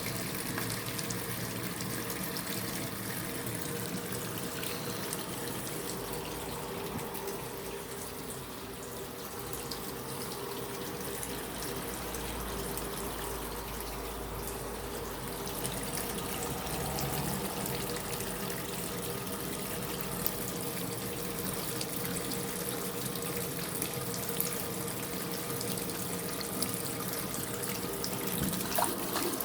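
Water running steadily from a tap into a sink, with a few small clicks in the second half.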